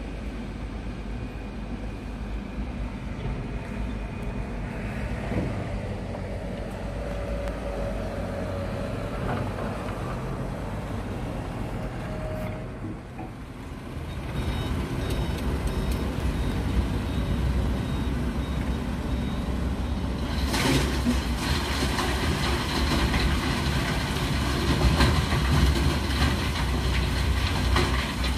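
Diesel dump truck engines running; about halfway through, a truck comes up close and its engine gets louder. A faint repeated high beep sounds for a few seconds, and a short burst of hiss comes about two-thirds of the way through.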